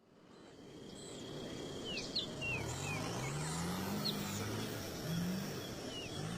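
Rainforest ambience fading in: birds chirping with short falling calls, a steady high insect drone, and a distant engine revving up several times.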